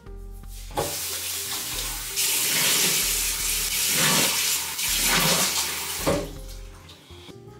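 Bathroom washbasin tap running while water is splashed onto the face from cupped hands, with a few sharper splashes. The water comes on about a second in and dies away near the end.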